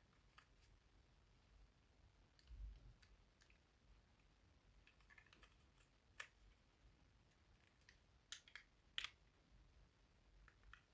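Faint, scattered plastic clicks and taps of a small eyeshadow palette case being handled and opened, with a few sharper clicks in the second half and a soft low bump a couple of seconds in.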